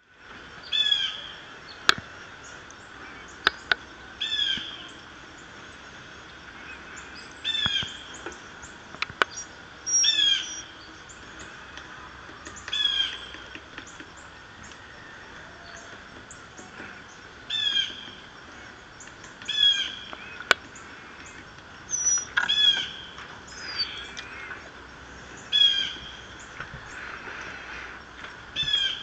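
Birds calling: a short call repeated about a dozen times, every two to three seconds. A few sharp taps in between, a white-breasted nuthatch hammering a sunflower seed wedged in a dogwood log with its bill.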